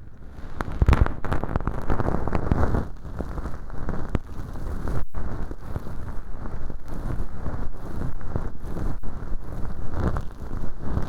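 Bonten feather ear pick brushing and scratching in a mock ear canal packed with velcro and dry fake earwax: a dense, crackly rustle. It starts at once and breaks off for a moment about five seconds in.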